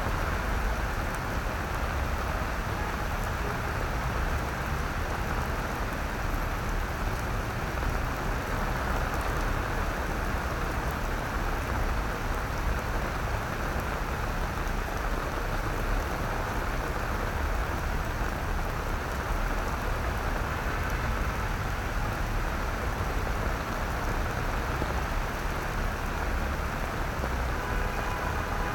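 Steady rain falling on wet paving and playground equipment, an even hiss with a constant low rumble underneath.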